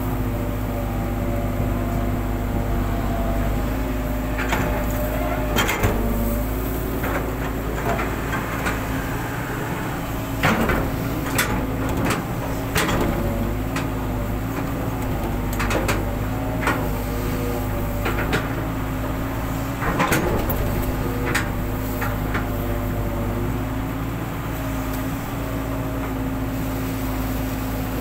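Hitachi long-reach excavator's diesel engine running steadily under hydraulic load, with repeated sharp knocks and clanks from the boom and bucket as it digs in the riverbed. The knocks come scattered through the middle of the stretch and die away near the end.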